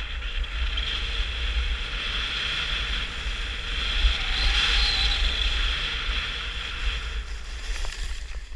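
Skis sliding and carving over groomed snow, a steady hiss that swells about halfway through, with wind buffeting the camera's microphone; both drop away suddenly at the very end.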